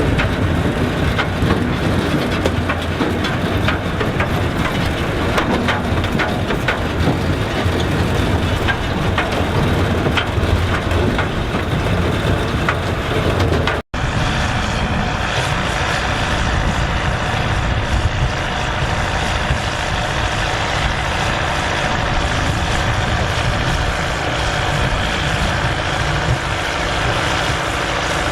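Massey Ferguson 3070 tractor's diesel engine running with a dense clatter and rattle of working harvest machinery. After an abrupt cut about halfway through, the engine runs on at a steadier hum.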